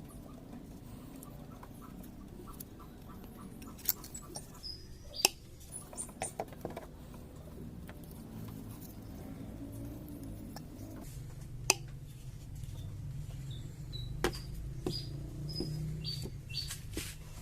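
Scattered sharp clicks and short high squeaks of small plastic fan parts being handled. A low hum sets in about two-thirds of the way through.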